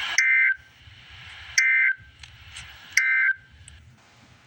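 Emergency Alert System end-of-message data signal: three short bursts of data tones, about a second and a half apart, marking the end of the alert broadcast.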